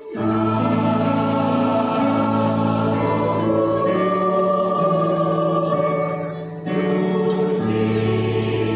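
Mixed adult choir of men's and women's voices singing held chords together, starting the phrase suddenly, with a short break between phrases about six and a half seconds in.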